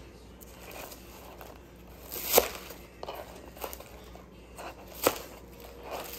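Kitchen knife cutting through long onion (green onion) stalks on a cutting board: light crisp crunches with two sharp knocks of the blade on the board, about two and a half and five seconds in.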